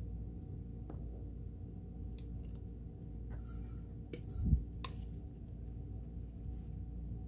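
Faint light clicks and taps of an oiler tip against the metal linkages of a Kenmore 158.1336 sewing machine as drops of oil are put on, over a steady low hum. A soft low bump comes about four and a half seconds in and is the loudest sound.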